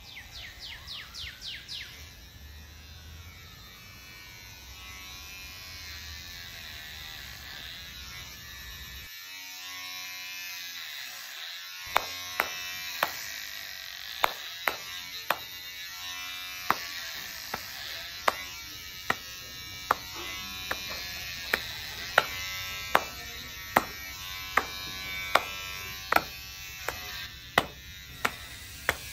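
Electric hair clippers buzzing steadily. About twelve seconds in, sharp clicks begin to repeat about every three-quarters of a second and are the loudest sounds.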